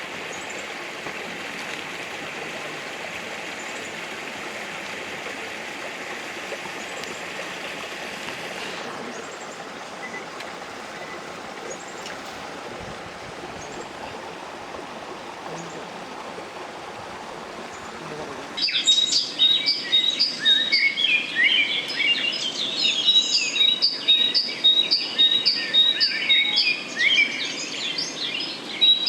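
Steady outdoor rushing noise, easing slightly about a third of the way in. About two-thirds in it switches abruptly to a loud, dense chorus of birds chirping, with one short high note repeated rapidly throughout.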